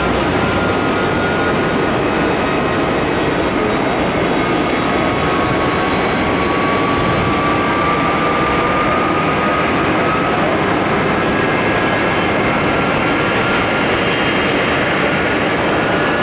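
Boeing 777's twin jet engines at takeoff thrust during the takeoff roll: a steady, loud jet noise with a faint whine that slowly rises in pitch midway.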